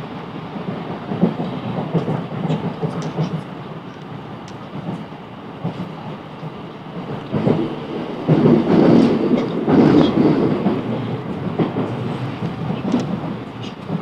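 A South Western Railway Class 707 electric train running on the track, heard from inside the carriage: a steady rumble with irregular wheel clatter. It grows loudest about eight seconds in, then eases back.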